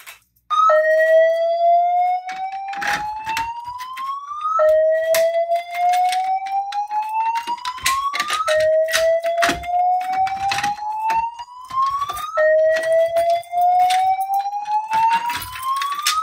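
Fire alarm voice-evacuation system sounding its slow-whoop alert tone: a rising sweep that repeats about every four seconds, four times over, with scattered sharp clicks and knocks on top.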